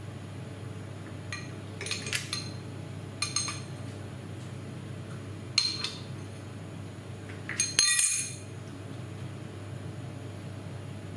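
Steel milling-machine step clamps, clamp nuts and a spanner clinking against each other and the table as the clamps are loosened and moved off a round steel workpiece: four short bunches of ringing metal clinks, the loudest about two seconds in and near the end, over a steady low hum.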